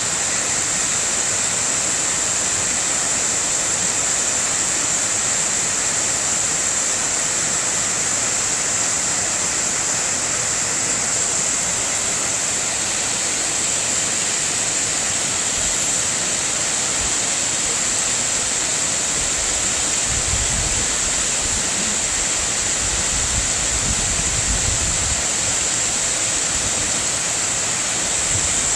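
Waterfall: a steady, even rush of falling water. A low rumble comes and goes about two-thirds of the way through.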